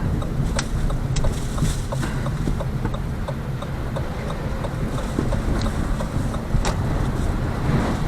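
Inside the cabin of a moving Lada Vesta Cross: steady low road and tyre rumble from studless winter friction tyres, which the owner calls rather noisy, with scattered light ticks and clicks.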